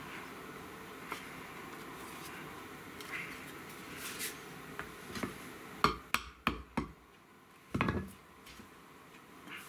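Hand-carved wooden buck saw parts knocking together as they are handled and fitted: a few light taps, then four sharp wooden clicks in quick succession about six seconds in, and a louder, duller knock a little later.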